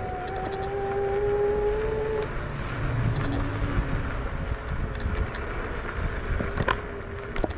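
Fluid Horizon electric scooter riding along: a steady motor whine that rises slightly in pitch over the first two seconds, then fades and returns faintly near the end. Under it runs a constant rumble of wind on the microphone and tyres on rough asphalt, with a couple of sharp clicks near the end.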